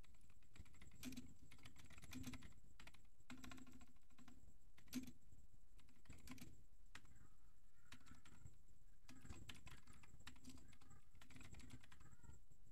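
Typing on a computer keyboard: faint, irregular key clicks as a line of code is entered.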